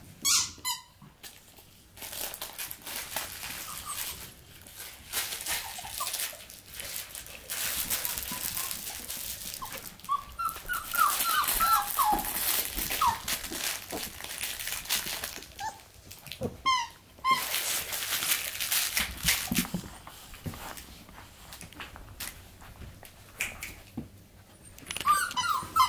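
Labradoodle puppies at play give short, high yips and whimpers now and then, with a run of them near the middle and another near the end. Under them is a steady scuffle and rustle of paws and bodies on blankets.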